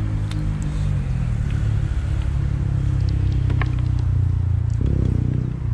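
An engine running steadily nearby, a low hum with a few faint clicks about three and a half seconds in.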